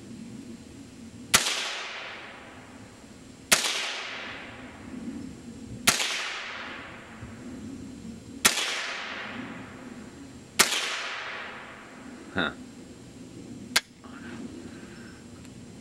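Ruger 10/22 semi-automatic .22 LR rifle firing five shots about two seconds apart, each crack followed by a trailing echo. Near the end come a softer knock and a single sharp click.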